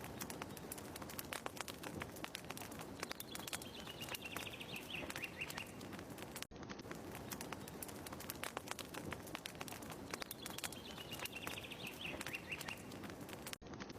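Fire crackling with many small pops, and a bird's short falling trill. The same few seconds of ambience repeat as a loop, so the trill comes twice with a brief dropout between.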